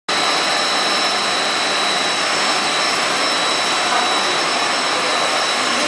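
UV roller coating line for wood-plastic flooring running: a steady rushing machine noise with several thin, steady high whines over it.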